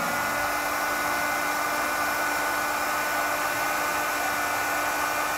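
Handheld electric heat gun (PT47VR) running steadily: a constant blowing rush with a steady fan whine as it shrinks a heat-shrink butt connector on a wire splice.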